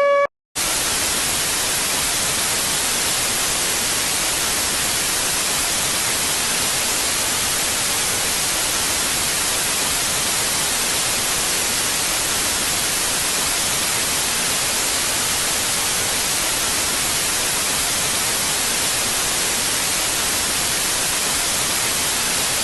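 Steady white-noise static hiss, like an untuned broadcast channel, starting about half a second in after a brief silence.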